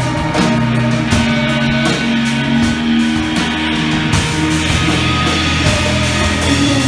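A rock band playing live: guitar chords over sustained low notes, with a steady cymbal beat.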